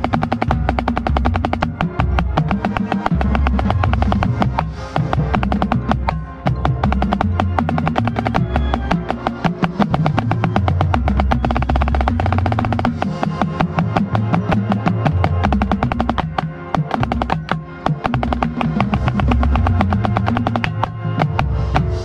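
Marching band playing, with rapid snare drum strokes heard close up over low band notes and drums; the playing drops away at the very end.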